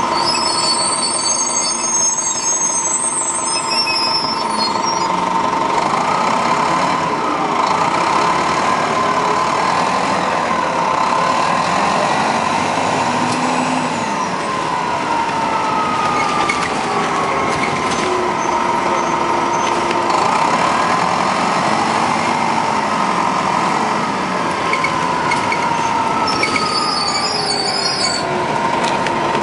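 Detroit Diesel Series 50 diesel engine of a 1996 Nova RTS transit bus, heard from on board, with an Allison automatic transmission. It runs steadily at first, then from about six seconds in its pitch climbs and drops several times as the bus accelerates and shifts, and it settles to a steady tone again near the end.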